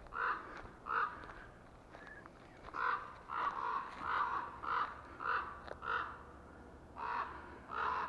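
Crows cawing in harsh alarm, about a dozen calls: a couple early, a quick run in the middle, then two more near the end. The crows are scolding an intruder near their nest.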